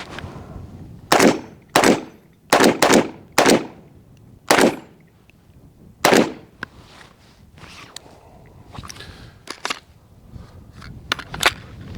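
Seven shots from a PSA JAKL pistol in .300 Blackout firing supersonic rounds, fired one at a time at an irregular pace over about five seconds. The pistol is cycling without a hitch after warranty repair. Fainter sharp pops follow in the second half.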